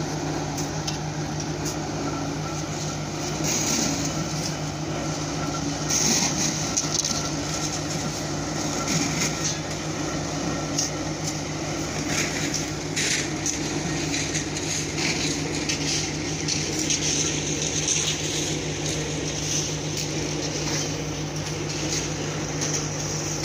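A construction machine's engine running steadily with an even low drone, under scattered scraping and clattering of shovels working gravel and sand, mostly in the first half.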